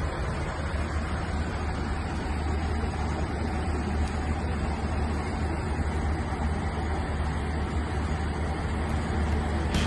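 Steady cabin noise of an airliner in flight: an even rush of engine and airflow noise over a strong low hum, running unbroken.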